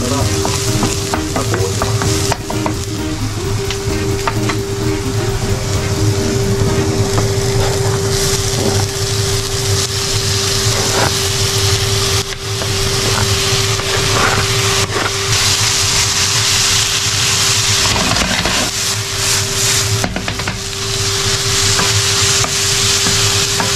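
Chopped onion and garlic sizzling in a frying pan, stirred and scraped with a wooden spatula. The sizzle grows louder about a third of the way in, as chopped octopus goes into the pan and is stirred through.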